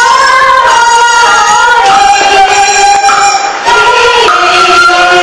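A folk tune played on a two-stringed bowed fiddle with a wooden box body. Its melody holds notes and slides between them without a break.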